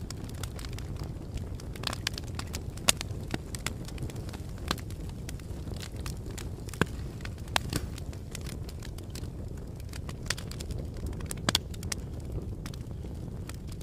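Wood fire burning, crackling with sharp irregular pops over a steady low rumble.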